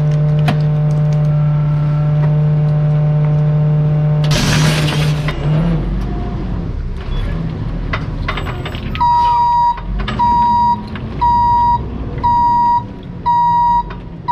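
Rear-loader garbage truck's engine idling with a steady hum, then a loud noisy burst lasting about a second around four seconds in. From about nine seconds a reverse alarm beeps about once a second as the truck backs up.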